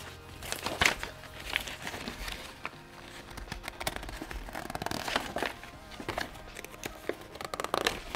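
Folded paper user manual being unfolded and pressed flat by hand: irregular rustling and crinkling of paper with sharp crackles.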